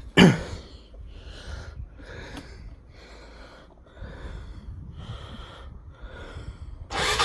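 A sudden loud thump about a quarter second in, then a person breathing heavily, about one breath a second. Near the end a loud, steady rushing noise starts abruptly.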